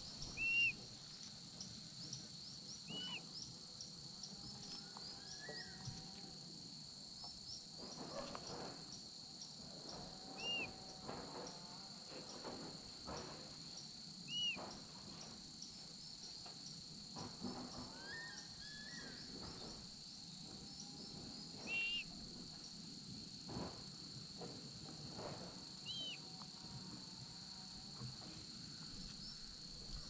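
Steady high-pitched chorus of forest insects, with a short, sharp bird call every few seconds and fainter warbling calls of other birds in between.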